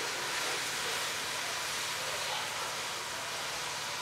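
A large mass of burning safety matches flaring together, giving a steady rushing hiss of flame.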